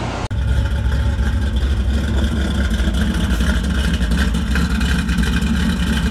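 1969 Dodge Charger engine running steadily, its exhaust coming out of a short pipe ahead of the rear wheel as an even, low, fast pulsing. It starts abruptly a moment in.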